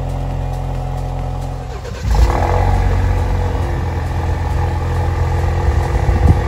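Alfa Romeo Giulia Ti Sport's turbocharged four-cylinder exhaust running steadily at idle; about two seconds in the sound switches abruptly to the louder, deeper note of the car with its resonator deleted, which then holds steady.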